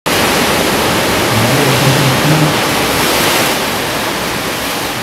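A loud, steady rushing noise with no clear pitch, starting abruptly and beginning to fade near the end.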